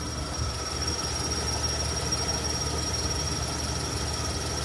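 Lada Vesta engine running just after a cold start at minus 8, the hydraulic lifters clattering in the first seconds, with a steady high-pitched whine over the engine noise. This is the cold-start check for the alternator belt whistle after the belt tensioner roller was replaced, and the mechanic finds no whistle.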